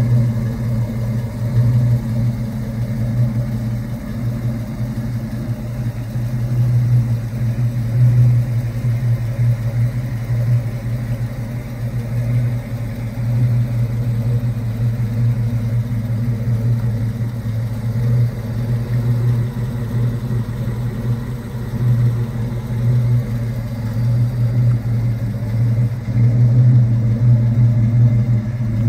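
1967 Ford Mustang GT S-Code's 390 cubic-inch big-block V8 idling steadily through its dual exhaust.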